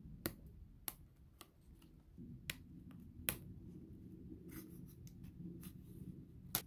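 Faint, sharp clicks and snaps of thin laser-cut plywood as small model-kit parts are pressed out of their sheet, scattered irregularly about once every second or so.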